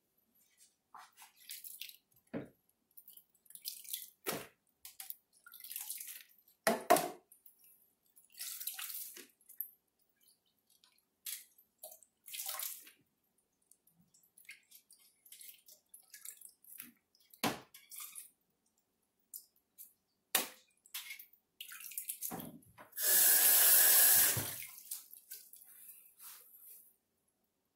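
Water splashing and dripping in irregular bursts as a hand scoops sliced leeks out of a steel bowl of rinsing water and drops them into a plastic colander, with a louder rush of water lasting about two seconds near the end.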